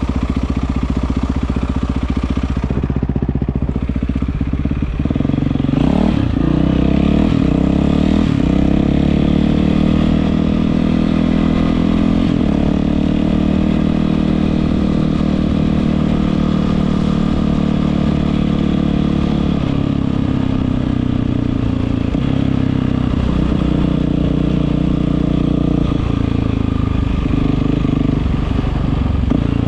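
Yamaha WR450F single-cylinder four-stroke dirt bike running through an Akrapovič exhaust. The engine note rises about five seconds in, then holds fairly steady with small shifts in pitch.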